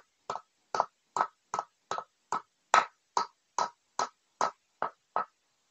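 Hammer tapping a new 6301 ball bearing into a motorcycle's alloy wheel hub: about a dozen light, even, metallic taps, roughly two and a half a second, each with a short ring. The taps stop about five seconds in, with the bearing seated.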